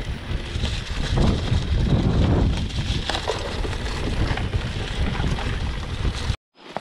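Wind buffeting the microphone of a handlebar-mounted camera on a mountain bike, mixed with the rumble and rattle of the tyres rolling over a bumpy dirt forest track. It cuts off suddenly near the end.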